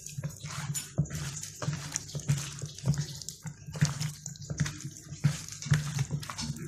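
Hands squishing and kneading raw chicken wings in a thick, wet marinade of egg, flour and sauces in a plastic bowl: irregular wet squelches and slaps, several a second.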